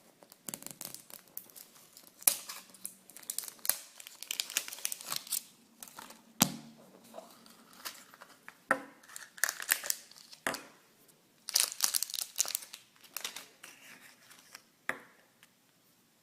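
Packaging wrapper being crinkled and torn open by hand, in irregular bursts of crackling with a few sharp clicks.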